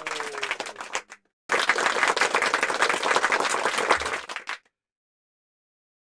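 Birds' wings flapping in a flurry: a dense clattering flutter for about three seconds that stops abruptly.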